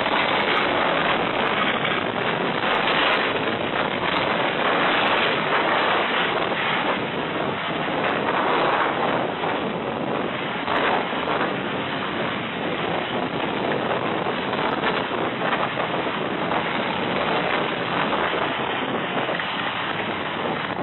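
Strong storm wind buffeting a security camera's microphone: a constant rushing noise whose gusts swell and ease, somewhat lighter in the second half.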